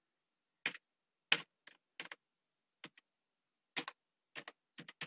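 Computer keyboard being typed on: a dozen or so separate key clicks at an uneven pace, with a short pause around the middle.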